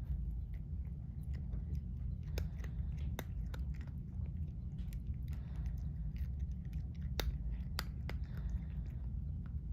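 A cat chewing and biting, with a few sharp crunching clicks, over a steady low hum.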